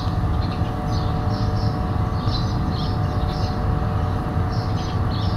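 Steady mechanical rumble with a constant low hum, like a running engine, with faint short high chirps now and then.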